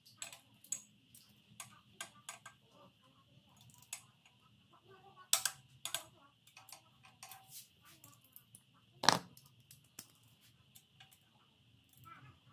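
Hand ratchet and socket clicking on exhaust header bolts as they are tightened: irregular ticks and small metal clinks, with a louder knock about nine seconds in.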